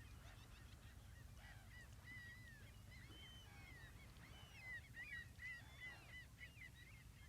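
Faint calls of a flock of birds: many short, overlapping honking calls that grow busier and louder around the middle, over a steady low rumble.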